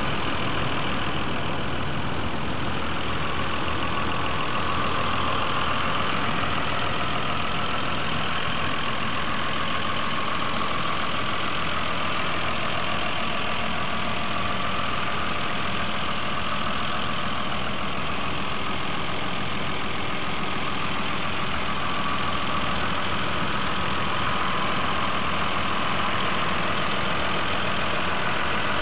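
Toyota Supra's 7M-GTE 3.0-litre turbocharged straight-six idling steadily, heard close up in the open engine bay.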